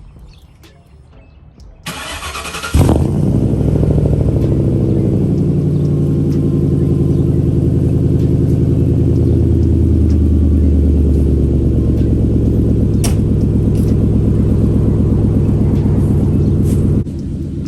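Car engine cold start: the starter cranks for about a second, then the engine catches and runs loud at a fast cold idle that slowly settles lower, through a straight-piped exhaust. The level drops suddenly near the end.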